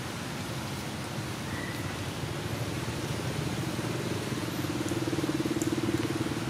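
An engine running steadily, getting louder in the second half.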